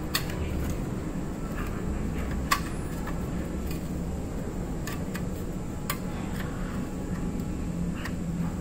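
A few light metallic clicks and taps of two steel circular saw blades being handled and laid against each other, over a steady low hum.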